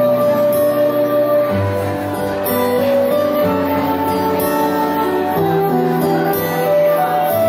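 Live band playing the instrumental introduction of a gentle slow song: long held chords over a bass line that changes note every second or two.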